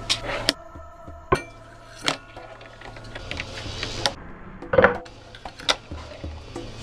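A fingerboard clacking on a wooden tabletop: scattered sharp taps and knocks as the tiny board is popped and landed. There is a longer scraping sound about three seconds in, and the loudest knock comes about five seconds in.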